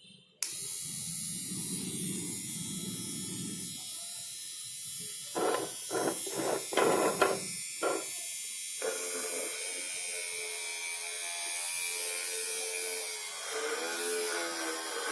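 Homemade mini drill's RS-555 DC motor switched on about half a second in and running with a steady buzz, with several short louder bursts around the middle and a change in its tone after that.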